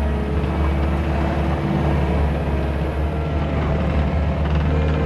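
Cat 289D3 compact track loader's diesel engine running steadily as the machine drives along on its tracks, with a steady hum and a higher tone over it.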